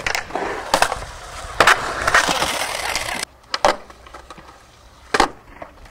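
Skateboard wheels rolling on concrete, punctuated by several sharp clacks of the board and trucks striking the concrete and coping. The level drops suddenly just after three seconds, and two more clacks follow.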